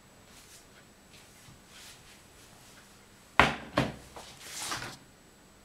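Quiet room tone, then about three and a half seconds in a sharp knock followed by a lighter one, and a brief scuffing noise.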